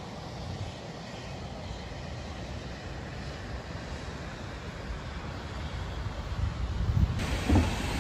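Steady low rumble of distant city traffic. About seven seconds in it cuts to louder street-level traffic noise with a few low thumps.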